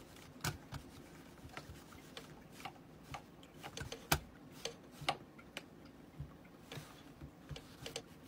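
Light clicks and taps at irregular intervals from a computer mouse on a mouse pad as a cat paws at it and its cable; the sharpest click comes about four seconds in.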